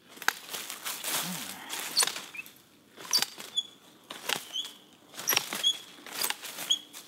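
Long-handled loppers snipping through brush stems, several sharp snips about a second apart, with branches and leaves rustling in between.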